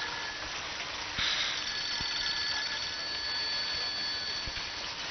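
Mobile phone ringing with a high, fast-trilling electronic ring that gets louder about a second in.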